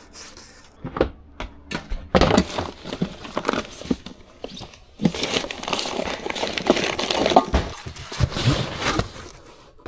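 Cardboard boxes and papers being handled and shifted by gloved hands: rustling and scraping with scattered knocks. A few separate knocks come in the first couple of seconds, and the rustling grows denser about halfway through.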